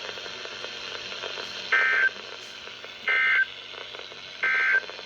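EAS/SAME digital data bursts from a NOAA Weather Radio broadcast: three short, identical warbling tone bursts about 1.4 s apart. Their shortness fits the end-of-message code that closes the special marine warning.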